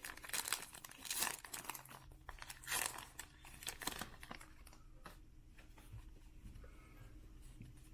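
A baseball card pack's wrapper being torn open, crinkling in several short bursts over the first three seconds, then fainter handling.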